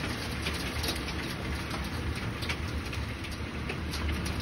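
Heavy supercell rain pelting a wooden deck and dock: a steady hiss dotted with many sharp ticks of drops striking, over a steady low rumble of storm wind.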